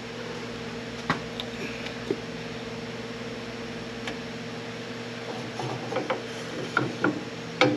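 Porta Power hand hydraulic ram being worked to spread its jaws between the subframe and an exhaust header, giving scattered sharp mechanical clicks, several of them close together near the end. A steady hum runs underneath.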